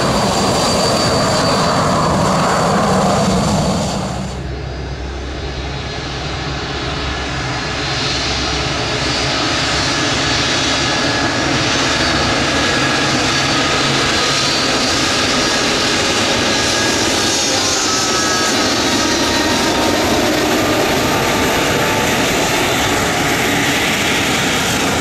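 Jet engines of a taxiing Boeing 737 running steadily at low thrust, cut about four seconds in to a taxiing Embraer E195-E2, whose engines run with a steady whine and several steady high tones, growing a little louder a few seconds later as it nears.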